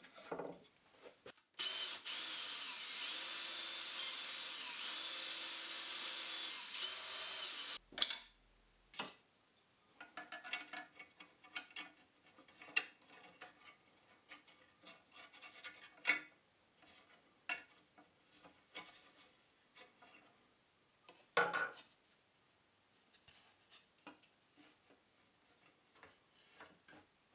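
A motorised power tool runs steadily for about six seconds, starting and stopping abruptly. After it, short scrapes and light knocks of a pencil marking hardwood frame parts and a wooden dowel being handled against them.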